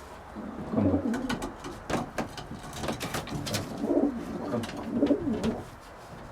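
Racing pigeons cooing in a loft, several drawn-out calls that slide up and down in pitch, with a few light clicks and taps among them.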